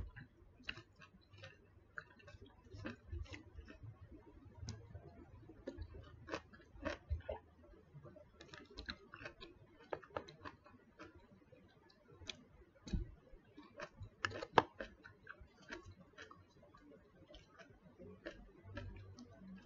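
Metal fork clicking and scraping against a plastic food container while stirring pomelo salad: light, irregular taps, a few a second, with a sharper knock about three quarters of the way through.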